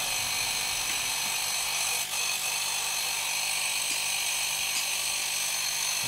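Reciprocating refrigerator compressor running steadily after being started by jumping its start winding, a steady hum with a high whine over it; running like this shows the compressor is good.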